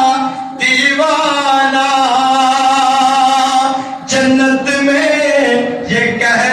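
A man singing a naat solo, holding long drawn-out notes in one phrase, then starting a second phrase about four seconds in.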